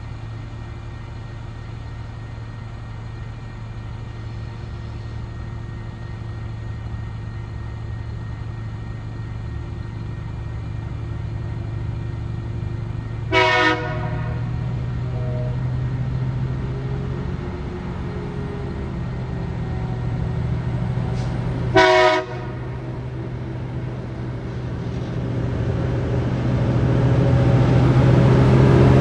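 TasRail TR class diesel locomotive TR05 approaching at the head of a freight train. Its engine hum grows steadily louder and swells as it reaches the crossing near the end. It sounds two short horn blasts about eight seconds apart, the warning for the level crossing.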